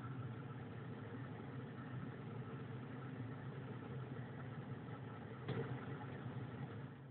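Steady low engine hum of a Peugeot 3008 heard from inside the car, with a short click about five and a half seconds in.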